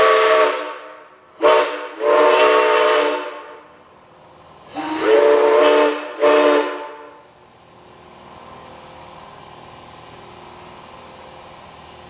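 Home-built five-chime steam whistle made to original Northern Pacific dimensions, blown on compressed air. It gives five blasts, some short and some about a second and a half long, each sounding a chord of several tones over a rush of air. After about seven seconds only a steady faint hiss is left, which stops near the end.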